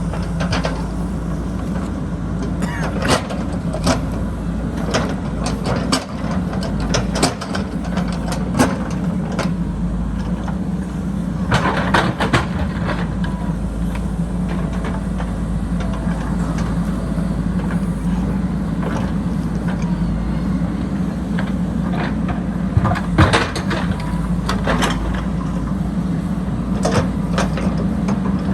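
JCB backhoe loader's diesel engine running steadily under load, with scattered sharp knocks and clanks throughout, a cluster of them near the middle and another about three quarters of the way in.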